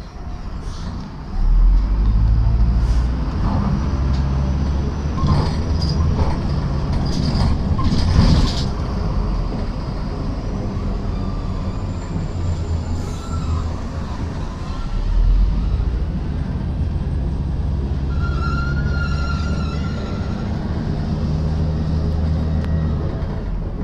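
Cabin noise aboard a MAZ 105 articulated city bus on the move: its diesel engine runs with a steady low drone and pulls harder about a second and a half in, over road noise and scattered rattles. A short high squeal comes about three-quarters of the way through.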